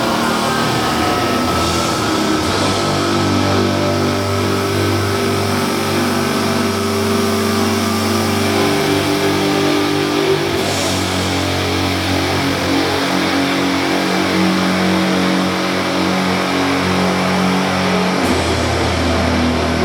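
Live doom metal: heavily distorted guitars and bass holding long, slow chords that move to a new chord every few seconds, played loud.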